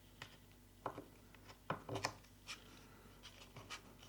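A few faint, short clicks and scrapes of small tools and parts being handled on a workbench, strongest about halfway through.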